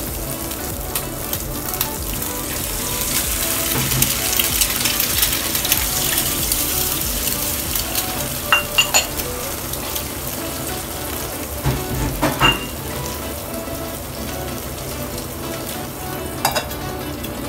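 Chinese sausage, pork roll and eggs sizzling in butter and oil in a small steel egg pan on a gas burner. The sizzle grows louder a few seconds in, and there are a few sharp metallic clinks around the middle. One more clink comes near the end as the aluminium lid goes on.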